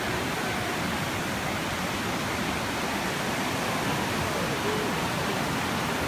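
Steady, even rushing noise without pitch or rhythm, holding a constant level throughout.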